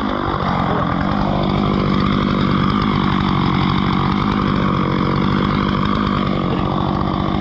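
Two-stroke chainsaw running steadily.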